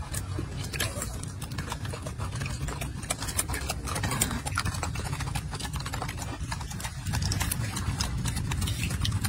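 Golden snub-nosed monkey eating grapes close up: irregular wet clicks and smacks of chewing, over a steady low rumble.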